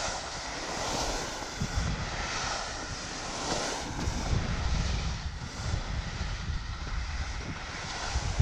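Telemark skis hissing and scraping over coarse spring snow during a fast descent, the hiss swelling and easing with each turn, over a steady low rumble of wind buffeting the microphone.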